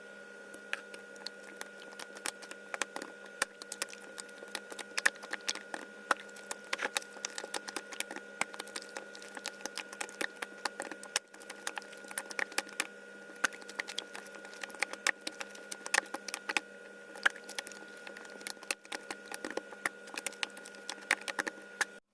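Slime being squished and worked by hand, sped up four times, giving rapid irregular sticky clicks and pops over a steady electrical hum.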